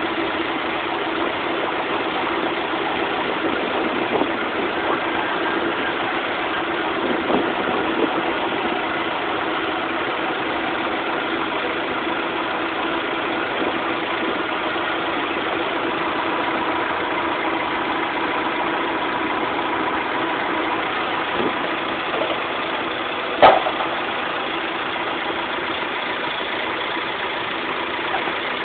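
Engine running steadily at an even speed, with a few light knocks and one sharp knock about three quarters of the way through.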